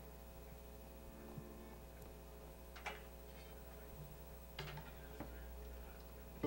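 Low, steady electrical hum from the stage amplifiers and sound system, with a few soft clicks and a couple of faint short low notes.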